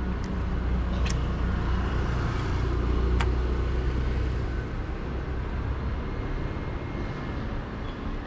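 Low, steady rumble of road traffic that swells to a peak about three seconds in and then slowly eases, with two faint clicks.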